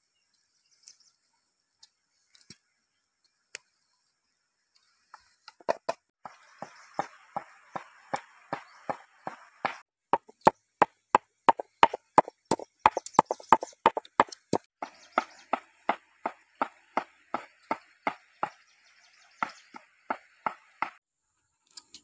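Pestle pounding red chilies in a heavy stone mortar, a steady run of hard knocks about two to three a second with a wet crunching between strokes. It starts about five seconds in and stops near the end.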